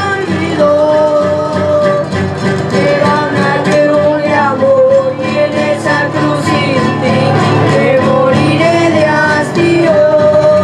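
A boys' trio singing a song to strummed acoustic guitars, played live through microphones.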